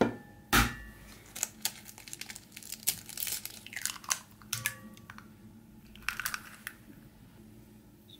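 An egg being cracked against the rim of a china bowl: a sharp knock about half a second in, then the crackling and clicking of the shell being pulled apart as the egg drops in. A few lighter clicks of handling follow about six seconds in.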